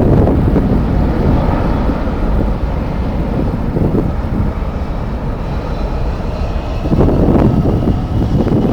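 Jet airliner engines running, with a faint whine in the second half, under heavy wind buffeting on the microphone; the gusts swell loudest at the start and again about seven seconds in.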